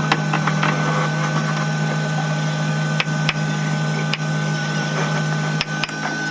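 Machinery running with a steady hum and a high whine, with a few sharp clicks or knocks at irregular intervals.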